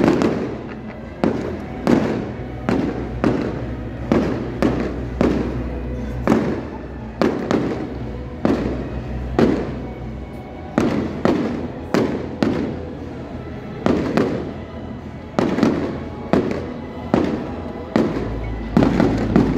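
Fireworks display: a steady run of sharp firework bangs, about one or two a second, each trailing off briefly.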